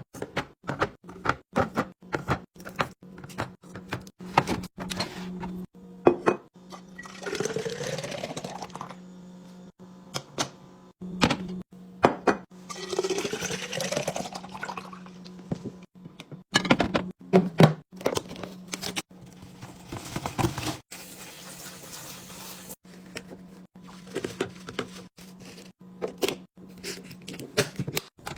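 Liquid poured into a container twice, the pitch rising each time as it fills, amid many clicks and knocks of containers, lids and packages being handled and set down. A steady low hum runs underneath.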